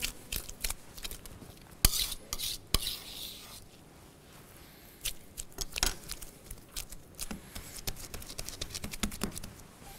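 A knife and metal utensils clinking and knocking against a counter and baking pans as biscuit dough is cut and handled: scattered taps, two louder knocks about two seconds in, then a run of light ticks in the second half.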